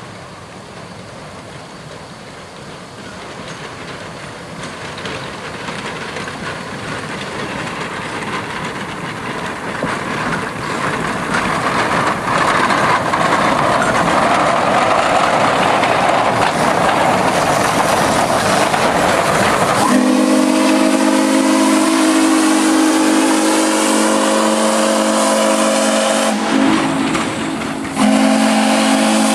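Shay geared steam locomotive No. 5 working in reverse, its exhaust and steam hiss growing steadily louder as it comes close. About two-thirds of the way in, its steam whistle opens into a long, steady blast of several tones at once. The blast dips briefly near the end and comes back.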